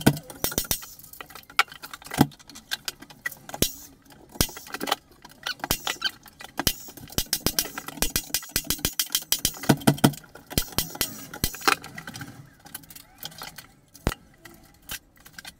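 Irregular sharp clicks and knocks as door-stop timber and tools are handled at a door frame, with a denser run of quick clicks about eight to twelve seconds in and a metallic jangle from a loaded tool belt.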